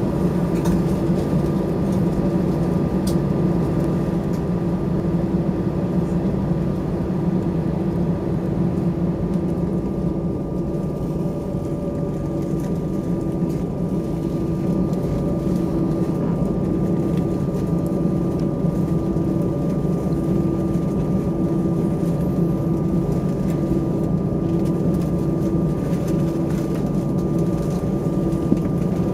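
Airbus A320 cabin noise while taxiing: the engines' steady low hum at taxi power, with a slow regular throb in it and a faint steady whine above.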